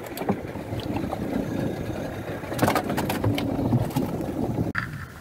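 Fishing boat at sea: a steady rumble of the boat and the water, with a few scattered knocks and clicks. The sound drops away abruptly near the end.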